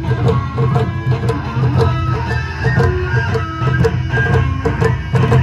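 Live Japanese folk-punk ensemble: large wadaiko barrel drums beating a fast, steady rhythm under a strummed shamisen and bamboo shinobue flutes.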